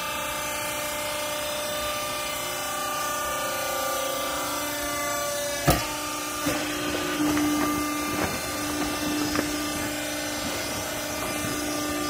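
Hydraulic pump motor of a vertical used-clothes baler running with a steady hum. A little before halfway there is one sharp bang, then a series of knocks and clatter over the steady tone.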